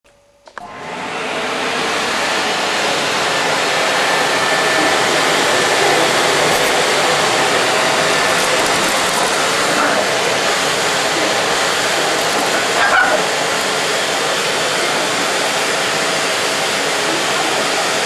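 Vacuum cleaner switched on about half a second in, its motor spinning up within a second or two and then running steadily with a loud rushing hiss. There is a brief louder sound a little past two-thirds of the way through.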